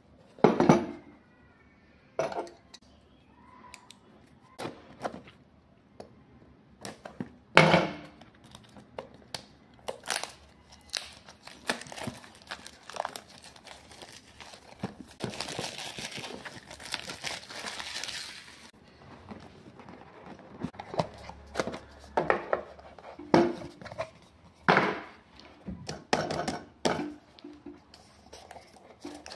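A smartphone's cardboard retail box being handled and unboxed: scattered taps and knocks of the box and fingers against it and the table, with plastic shrink-wrap crinkling and tearing for a few seconds in the middle.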